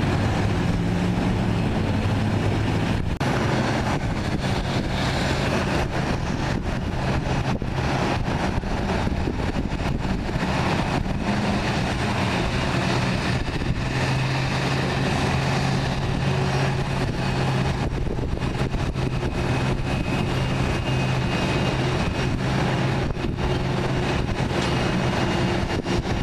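A steady engine drone with a constant low hum and no build-up or fade.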